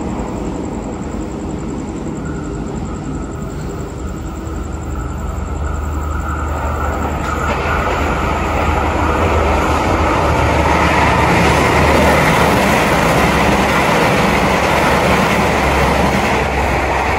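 Train passing on the track: a steady low rumble with rushing wheel-on-rail noise that builds from about halfway through and stays loud near the end.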